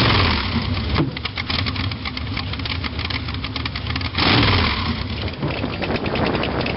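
A car engine running, rising in level twice: once at the start and once about four seconds in.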